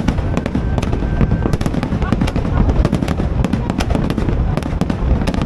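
New Year fireworks display: a dense, continuous barrage of overlapping bangs and crackles over a heavy low rumble.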